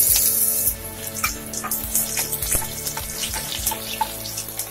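Chopped onions frying in hot oil in a nonstick kadai. A loud sizzle from their going in drops off under a second in to a quieter sizzle with scattered pops and clicks as they are stirred with a steel spoon.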